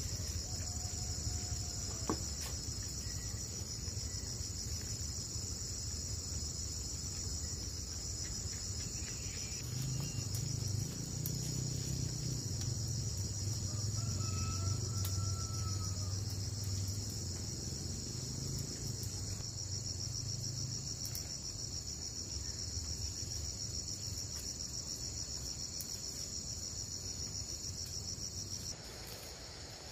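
Insects, crickets or cicadas, chirring in a steady, high, finely pulsing chorus, with a low rumble underneath that is strongest through the middle. The chorus cuts off abruptly about a second before the end.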